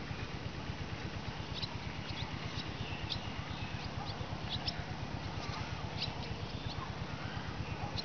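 Birds calling over a rice paddy: many short, high chirps scattered throughout, with a few wavering, sliding calls in the second half. A steady low rumble runs underneath.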